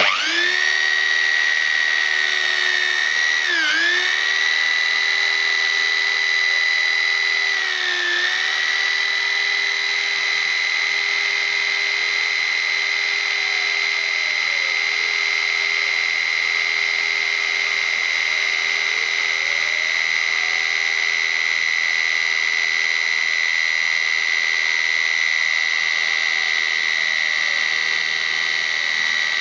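CNC machine running with a steady high whine. The pitch dips briefly twice, around four and eight seconds in, over faint tones that rise and fall.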